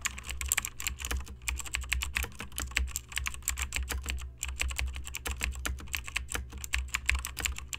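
Rapid, irregular clicking, many clicks a second with a couple of brief pauses, over a low steady hum.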